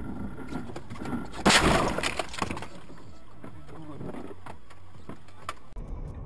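Car collision: a loud crash about a second and a half in, with glass breaking, followed by a few sharp knocks and rattles.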